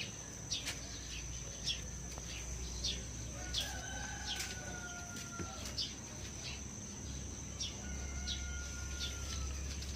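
A rooster crowing faintly twice, each crow long and slightly falling in pitch, with small birds chirping and a steady high insect tone throughout.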